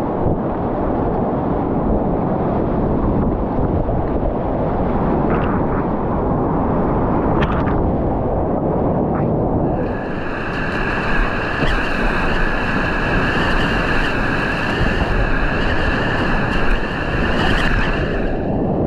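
Whitewater rapids rushing, picked up by a GoPro camera worn on a kayaker's life jacket: a loud, dense wash of water noise that is heaviest in the low end. From about ten seconds in until near the end, a steady high-pitched whine with several tones lies over the water, then cuts off.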